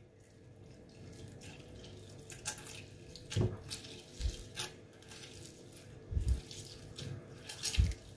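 A lemon half squeezed by hand, its juice trickling and dripping into the blender jar, with a few soft knocks of handling.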